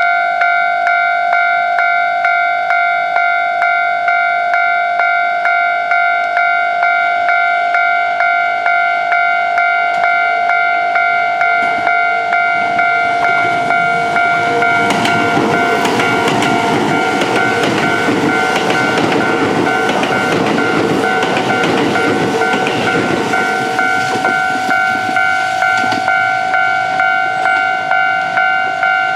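Japanese level-crossing alarm ringing in steady repeated strikes, about one and a half a second. From about twelve seconds in, a Kintetsu 22000-series limited express and a 2610/1230-series express pass each other through the crossing. Their wheels and running gear rush loudly over the bell for about a dozen seconds, then fade, and the bell rings on alone.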